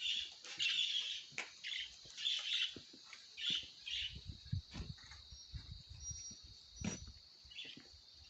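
Birds chirping in short high calls, about two a second, thinning out after about four seconds, over a steady high hiss. Soft low thumps and a few sharp clicks follow.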